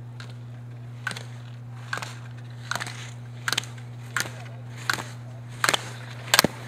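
A slalom ski racer running the gates: a sharp hit at each turn as the skis bite the hard snow and the gate poles are knocked aside, eight in a steady rhythm about three-quarters of a second apart, getting louder as the racer comes closer. A steady low hum runs underneath.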